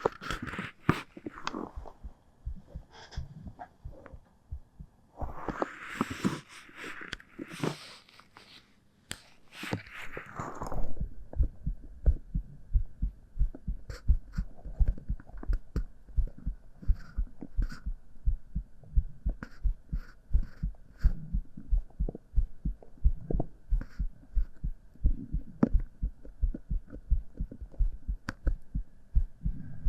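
Scratchy rubbing and rustling close on the microphone for about ten seconds. It then gives way to a close-miked human heartbeat: steady, rapid low thumps that carry on to the end.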